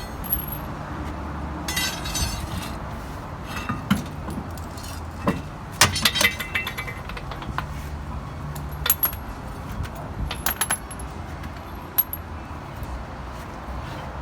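Scattered metallic clinks and clanks of tools and wheel hardware being handled during truck wheel work, a few with a short high ring, over a low steady hum.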